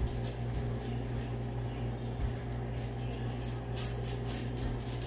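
Steady low hum of a kitchen, with a few faint light clicks and one sharper tick about four seconds in.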